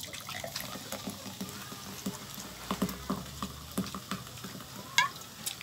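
Close-up chewing and wet lip smacking while eating rice and dinuguan by hand: a string of small irregular mouth clicks and smacks, with a short rising squeak near the end.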